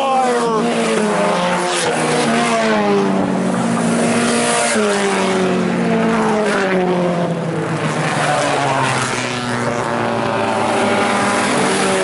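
Engines of several sport compact race cars running hard as they pass close by on a dirt oval, one after another, each engine note falling in pitch as the car goes by.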